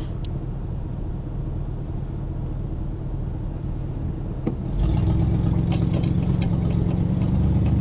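Car engine running, heard from inside the cabin. About four and a half seconds in there is a click, after which the engine gets louder and steadier.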